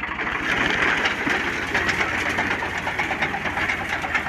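Al-Ghazi tractor's diesel engine running steadily under load, with the rapid mechanical clatter of the reaper binder machine working with it.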